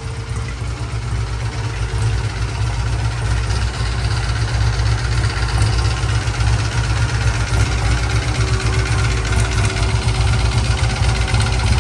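Vintage Triumph twin motorcycle engine idling steadily at about 900 rpm, its top end freshly rebuilt with new head, valves, rings and pistons and fed by twin Amal Monobloc carburettors.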